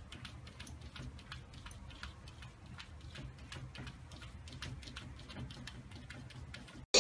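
Light, irregular tapping and clicking as a cat's paws and claws pat against mirror glass, several taps a second over a low room rumble. It cuts off suddenly near the end.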